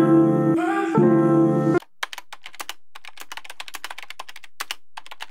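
Music with sustained pitched notes stops abruptly about two seconds in. It is followed by a run of quick, uneven light clicks, several a second, over a faint steady hiss.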